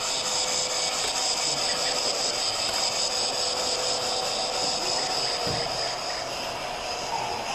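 Gauge 1 model narrow-gauge steam locomotive running along the layout, with a steady hiss. A single soft low thump comes after about five seconds.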